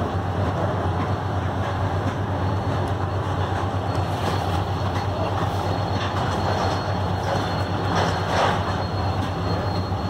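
Steady machine drone with a strong low hum, with a few faint clicks over it and a brief louder noise about eight seconds in.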